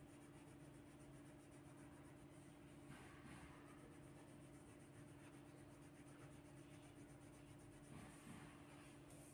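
Faint scratching of a coloured pencil on paper, over a low steady electrical hum.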